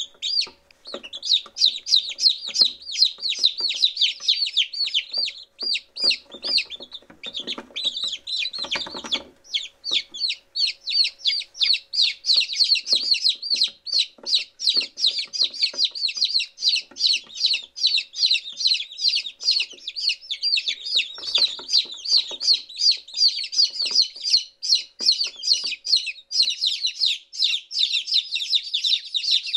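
A group of day-old chicks peeping continuously, many rapid high-pitched cheeps overlapping one another.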